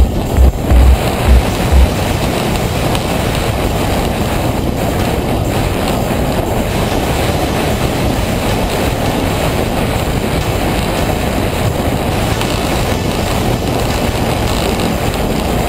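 Steady rushing and rumbling from a track bike riding fast on a wooden velodrome track, heard from a camera on the bike: wind on the microphone and tyres on the boards. Heavy low thumps sound over it during the first two seconds, then stop.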